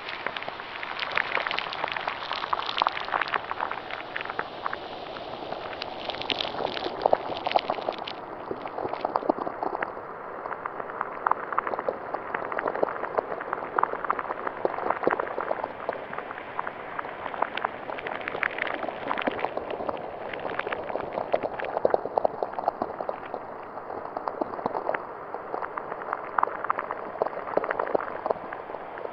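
Designed dark sound-effect texture of dense bubbling and crackling, like liquid at a rolling boil, with many small pops scattered through it. The hiss in the top end thins out about eight seconds in.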